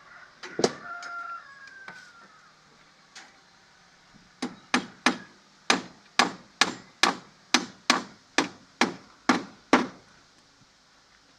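Hammer blows, about a dozen sharp strikes at a steady rhythm of a little over two a second, starting about four seconds in and stopping near the end; typical of nailing timber formwork. A knock and a short gliding call come at the start.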